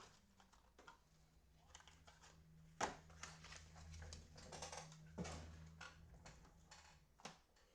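Trading cards and their packaging handled at a table: soft rustling and sliding with a few sharp clicks, the sharpest about three seconds in, over a faint low hum.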